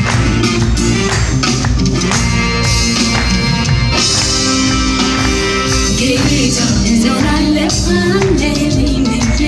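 Live amplified Ethiopian Protestant worship song (mezmur) from a band: a steady beat with busy percussion under held chords, and from about halfway in a woman's voice singing over it.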